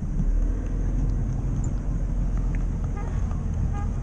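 Boat engine running steadily, with water and wind noise.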